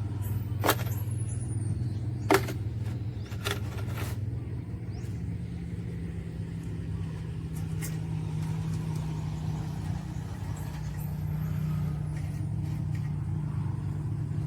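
Engine of a farmer-built rice sprayer machine running steadily, its pitch stepping up a little about five seconds in. A few sharp clicks come in the first four seconds.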